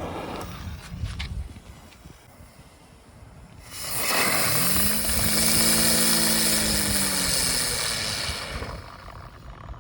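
Ground spinner firework spinning inside a box. A loud hiss starts about four seconds in, with a whirring tone that rises in pitch as it spins up, holds steady, then sinks and dies away as it burns out near the end.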